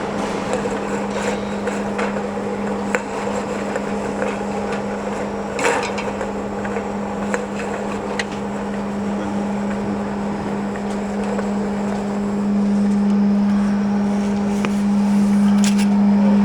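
Industrial aluminum can washing machine running with a steady hum, with scattered clicks and knocks over it; it grows somewhat louder near the end.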